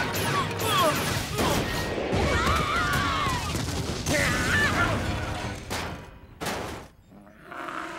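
Cartoon action sound effects: ray-gun blasts, crashing and an explosion, dense and loud. They ease off after about five seconds into two short, sharp hits and a brief lull.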